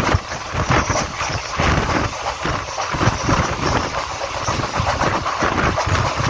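Wind buffeting the microphone in irregular gusts over the steady rushing noise of a moving passenger train.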